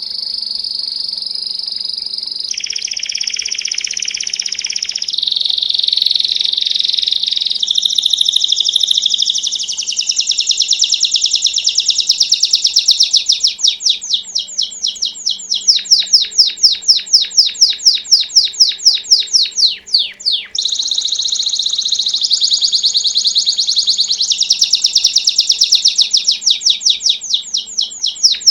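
Belgian canary singing a long, continuous bell-like song (canto campainha). It moves from smooth, sustained trills into fast runs of rapidly repeated ringing notes, with a brief break about two-thirds through.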